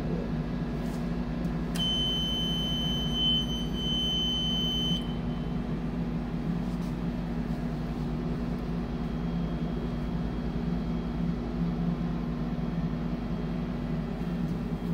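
Steady electrical hum from control-panel equipment, with a high-pitched electronic beep that starts about two seconds in and holds for about three seconds.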